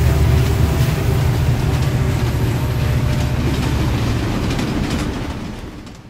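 Electric multiple-unit passenger train passing close by: a steady low rumble with the clickety-clack of wheels over the rails, fading away near the end as the last car goes by.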